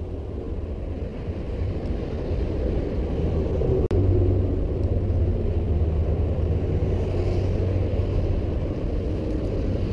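Steady low rumble of road traffic crossing the bridge overhead, with one sharp click about four seconds in.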